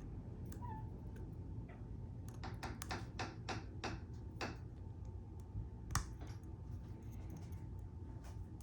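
Small sharp clicks of a pick and tension tool working the pins of a tubular cam lock: a quick run of about four clicks a second some two seconds in, then a single sharper click near the middle.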